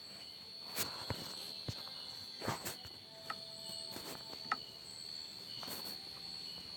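A steady high-pitched insect drone, with about seven short knocks scattered through it.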